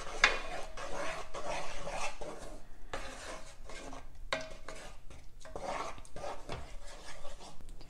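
Wooden spatula stirring and scraping thick onion-tomato gravy around a nonstick pot, in irregular strokes with a few sharp knocks against the pot, as the paste cooks down.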